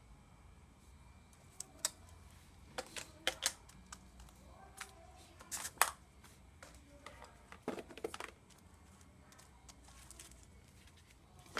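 Irregular clicks and knocks of small plastic phone accessories and boxes being handled, picked up and set down on a tabletop, in scattered clusters with the sharpest about halfway through.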